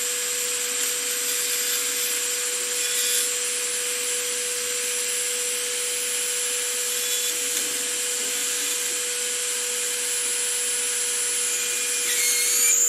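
A small electric motor spins the Rotoforge's threaded die while a drill bit, held still in needle-nose pliers, is pressed into it lathe-style to drill out its bore. The motor runs with a steady whine under a continuous high scraping hiss of the bit cutting. Near the end a squealing tone slides upward and the sound gets louder.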